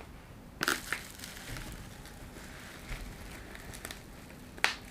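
Plastic parcel packaging and bubble wrap being handled and opened, crinkling and crackling, with a sharp crackle about half a second in and another near the end.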